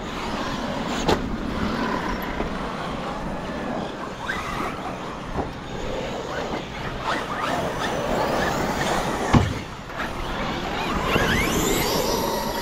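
Several electric RC monster trucks driving on dirt, their brushless motors whining up and down in pitch as they speed up and slow down, with tyres scrabbling on the dirt. A sharp thud about a second in, and a louder one about three-quarters of the way through, from a truck landing or crashing.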